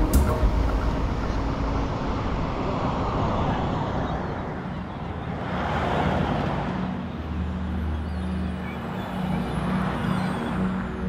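Road traffic passing: vehicles' tyre and engine noise swell and fade one after another. The loudest pass is a four-wheel-drive ute about six seconds in, followed by a low engine drone, and another swell comes from a car and a ute passing near the end.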